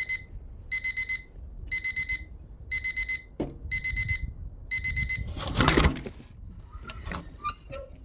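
Electronic alarm clock beeping in quick groups of four beeps, about once a second; it cannot be silenced because its stop button is broken. The beeping stops about five seconds in, and a loud rushing noise follows. A sharp knock and a few small clicks and chirps come near the end.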